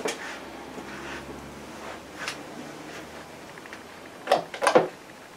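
Short scrapes and taps of a palette knife working oil paint. Two louder ones come close together near the end.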